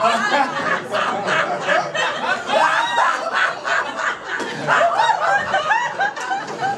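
Live audience laughing, a dense wash of overlapping laughter with rapid pulses.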